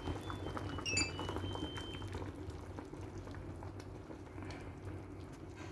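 Spinach clear soup (sayur bening) bubbling in a pot, a steady simmer with many fine crackles. A few short high tones sound briefly about a second in.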